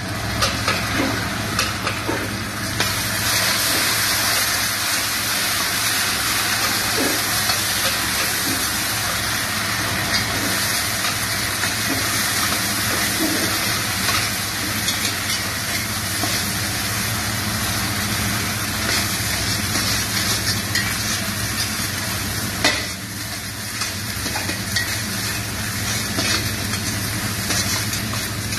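Chicken bones, vegetables and tomato puree sizzling in a hot steel stockpot while a metal spatula stirs and scrapes the bottom. The sizzle grows louder a few seconds in and eases briefly near the end.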